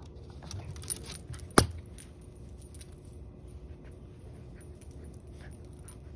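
A sharp click about a second and a half in, with a smaller one just before it, over faint clinking and rustling.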